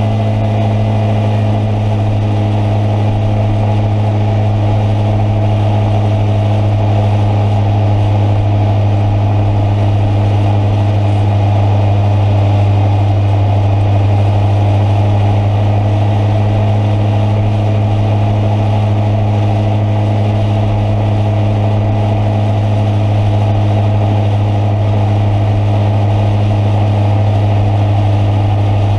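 Motorcycle engine running steadily at a constant speed, one unchanging engine note with a rushing noise over it.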